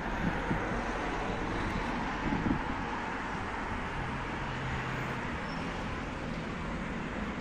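Street traffic: a steady wash of car and road noise, with a low hum a little past halfway through.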